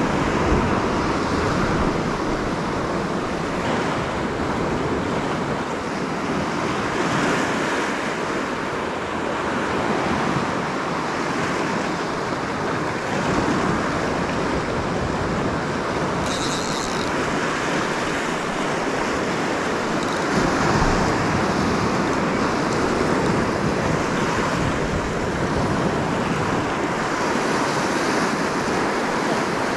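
Ocean surf surging and breaking against a rocky shore, a continuous wash of waves, with some wind on the microphone.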